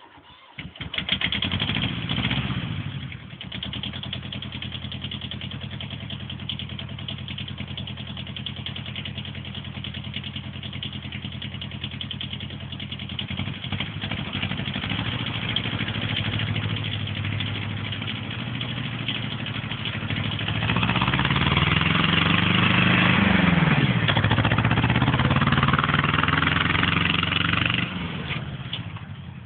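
Kubota B6000 compact tractor's small two-cylinder diesel engine running. It comes in abruptly, loud for a couple of seconds, then settles to a steady run. In the last third it runs louder with its pitch rising and falling as it accelerates pulling a fully loaded trailer, then drops back shortly before the end.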